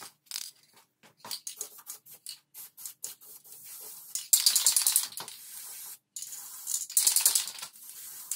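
Aerosol spray paint can shaken, its mixing ball rattling in a string of clicks, then sprayed in two hissing bursts of about a second each, a couple of seconds apart.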